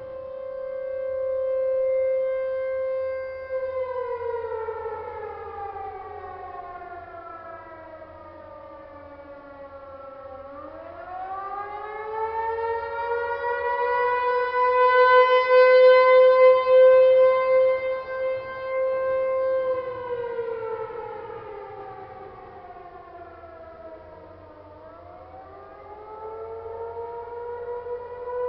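An American Signal Tempest outdoor warning siren. It holds a steady tone for the first few seconds, then winds down in pitch and goes into a slow wail, rising, holding and falling twice, which is the steady Alert signal giving way to the wailing Attack signal. Its loudness swells and fades as the rotating siren sweeps toward and away.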